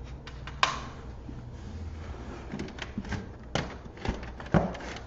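Plastic CD jewel cases clacking as they are handled and set down: several sharp, irregular clicks and knocks over a low steady hum.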